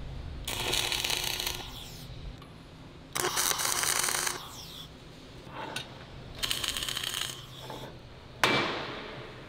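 MIG welding arc crackling in three short tack welds of about a second each on steel plate. Near the end, a single sharp hammer blow on the steel rings out briefly.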